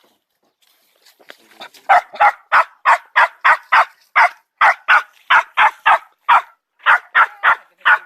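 Small dogs barking in quick, steady succession, about three barks a second, starting about two seconds in: hunting dogs baying at a wild boar.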